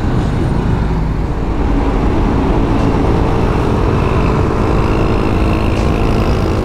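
BMW G310GS motorcycle underway in road traffic: steady, loud engine and road noise with a heavy low rumble, with other vehicles around it.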